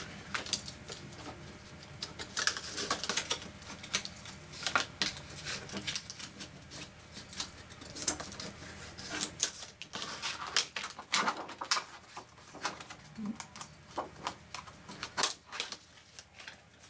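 Stiff clear acetate sheet being scored with a bone folder and creased along the score lines: irregular scratching and clicking of the plastic sheet against the tool and the mat.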